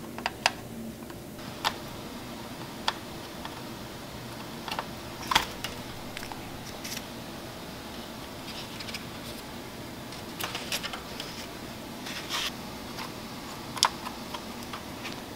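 Scattered light clicks and taps of a synth circuit board and soldering tools being handled on a workbench, the loudest about five seconds in, over a faint steady hum.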